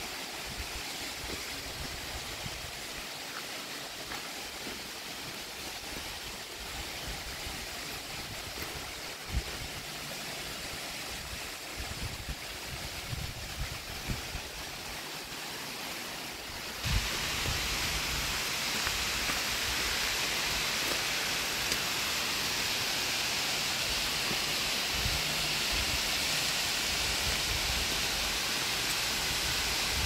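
Steady rushing hiss of a waterfall, water spilling down a tall rock cliff. About halfway through it suddenly becomes louder and brighter, with scattered low rumbles underneath.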